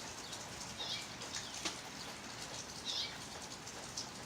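Steady rain falling, with scattered drips hitting a surface. A bird gives two short, high chirps, about a second in and near three seconds.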